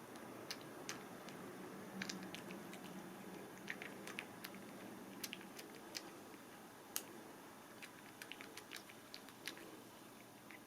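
A cat chewing small dry treats: quiet, irregular crunching clicks.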